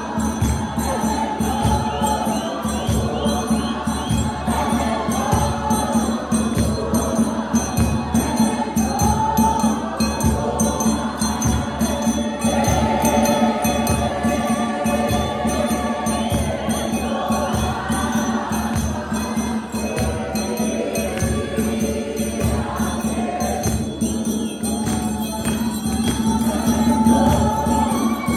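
Church congregation singing a gospel hymn together, loud and unbroken, over steady rhythmic hand-clapping.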